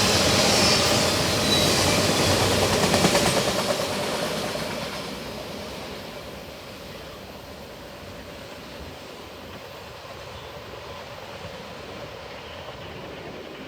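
Long CSX double-stack and autorack freight train rolling past on the rails; about four seconds in the noise dies away over a few seconds, leaving a quieter steady rumble.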